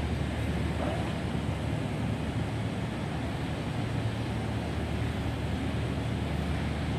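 Steady low drone of a 42-metre catamaran fast ferry's engines running at low power as it manoeuvres off its berth, over an even rushing hiss of water and wind.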